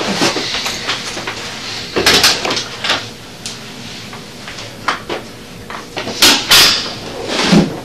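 A door opening and shutting, followed by scattered short knocks and rustles of movement over a steady room hiss.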